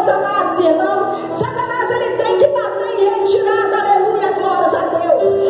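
A woman singing through a handheld microphone, a slow melody with a long held note near the end.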